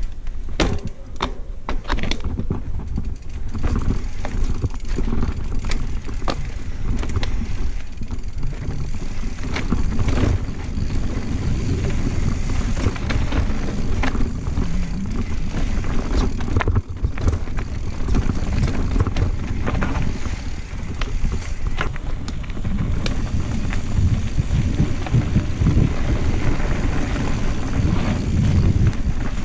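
Santa Cruz Blur cross-country mountain bike descending a rough dirt singletrack: a steady low rumble of tyres on dirt, with frequent clicks and knocks as the bike rattles over rocks and roots.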